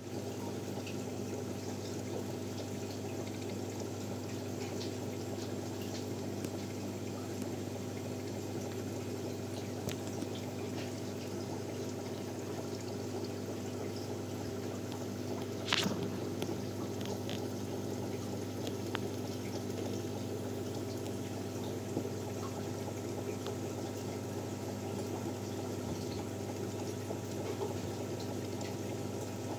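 Aquarium pump running with a steady hum while water bubbles and trickles in the tank. A single sharp tap about halfway through.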